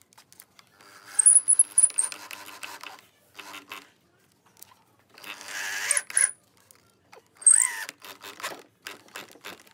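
Cordless drill boring into a pine workbench leg in several short bursts, the longest about two seconds, the motor whine rising and falling as the trigger is squeezed and let off. Clicks and knocks of handling come between the bursts.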